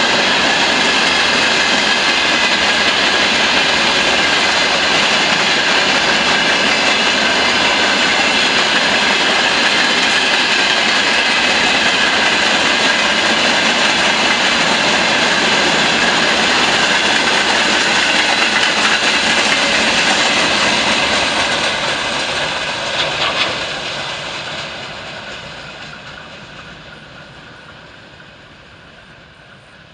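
Freight train passing on the rails: a loud, steady rumble and clatter of wheels. About 22 seconds in it begins to fade steadily away, with one short clatter as it dies down.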